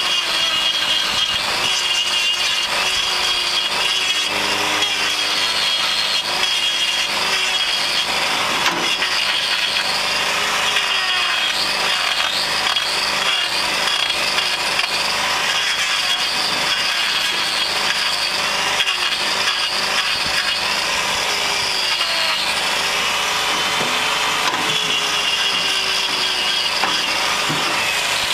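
Angle grinder trimming a cow's hoof, running continuously with a steady high whine and a grinding rasp, its pitch repeatedly sagging and recovering as the disc bites into the hoof horn.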